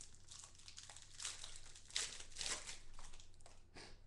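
Plastic crinkling and rustling as hands handle a stack of trading cards, in several short, irregular bursts.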